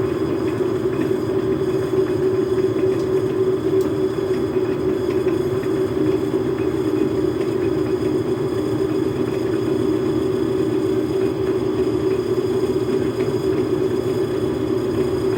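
Logan metal lathe running steadily, driven by a Harbor Freight electric motor: a constant machine hum with no change in speed.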